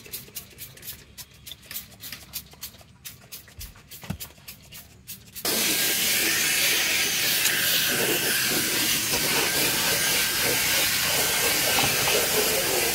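Spray bottle squirting cleaner in short, quick bursts. About five seconds in, a cordless drill fitted with a scrub brush starts up and runs steadily and loudly, the spinning brush scrubbing a leatherette car seat.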